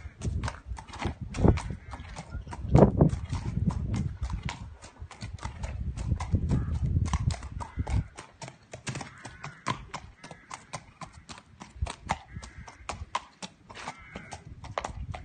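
Shod horse's hooves clip-clopping on wet concrete at a trot, a quick, even run of sharp hoof strikes.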